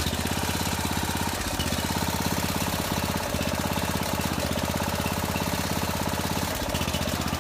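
Small engine of the pier-lifting power unit running steadily under load while the steps are jacked up, with a brief dip in its note a few times as the lift is switched.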